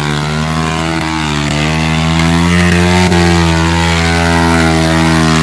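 Off-road vehicle's engine held at high revs, a loud steady drone that wavers slightly up and down in pitch.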